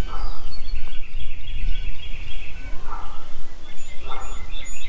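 Steady, loud low rumble of background noise, with faint short bird chirps over it.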